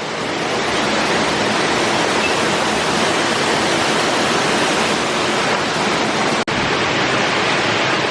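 Steady rush of waterfall water, an even hissing roar that cuts out for an instant about six and a half seconds in.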